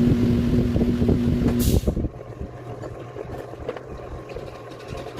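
A vehicle engine running with a steady whine, then a short burst of hiss about one and a half seconds in. After the hiss the sound drops to a quieter low hum.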